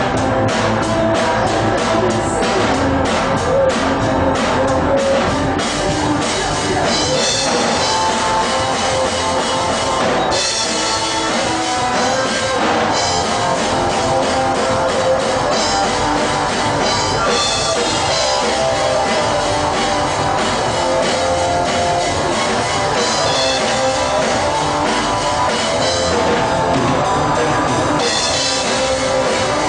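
Live rock band playing an instrumental passage: drum kit and guitars, no singing. A steady drum beat is clearest in the first few seconds.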